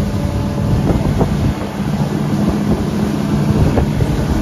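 Honda 150 four-stroke outboard motor running steadily at speed as the boat travels, with wind on the microphone and water rushing past the hull.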